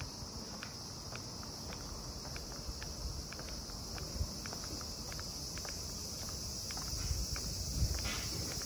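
Cicadas shrilling in a steady high hiss, with the walker's footsteps and light ticks and taps underneath.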